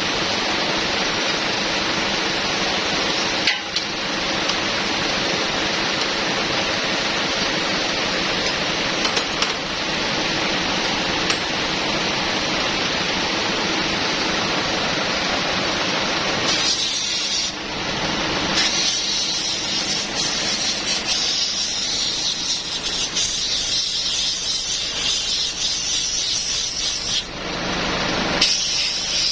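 Steady loud hissing spray. It changes in tone partway through, with two brief breaks.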